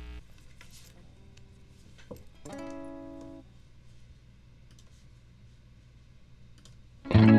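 Electric guitar played direct through an amp-simulator plugin: a few quiet test notes, then a chord ringing for about a second near the middle. Loud strummed chords start just before the end, over a low steady hum.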